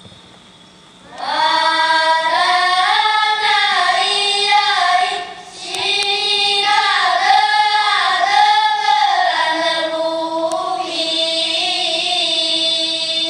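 Paiwan children's choir singing together, starting about a second in, with a short break near the middle and a long held note near the end.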